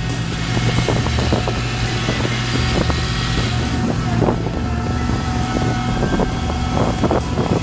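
Heavy machinery engine running steadily, with several short knocks and clanks.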